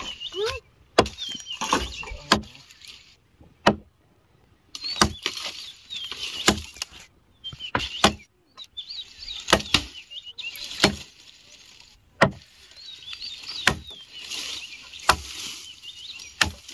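Repeated sharp strikes, like chopping or knocking, one about every second or so at an uneven pace, with faint high warbling chirps between them.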